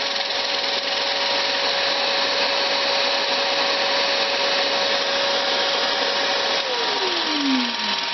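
Vertical milling machine spinning a diamond grinding cup wheel over an old bench stone: a loud steady hiss with a constant whine. Near the end the whine falls steadily in pitch as the spindle winds down.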